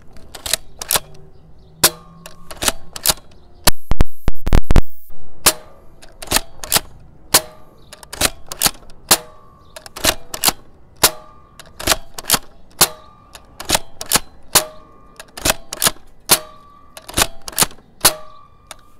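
A Villainator pump-action foam dart blaster being pumped and fired again and again. It makes a steady string of sharp plastic clacks, about two a second, with a short ringing note after many of them. About four seconds in there is a loud rattling burst.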